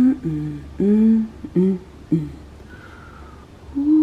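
A woman humming in about five short, pitched vocal bursts, each rising and falling in pitch, over the first two seconds, then a pause of low room tone.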